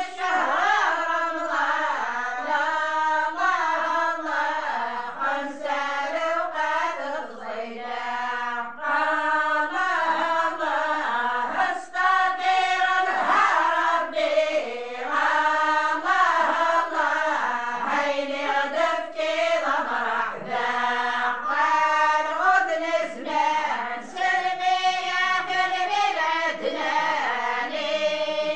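A group of women chanting a religious praise song together in Tamazight, unaccompanied, in continuous melodic phrases.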